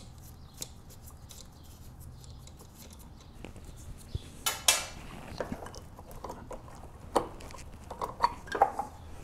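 Metal clinking, clicks and scraping as a loosened GY6 scooter flywheel and its pusher bolts are handled and worked free by hand, with a few louder clanks about halfway through and near the end.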